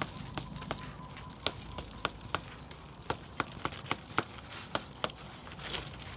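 Old sunflower plants being cut and pulled by hand: a run of irregular sharp clicks and snaps, two or three a second.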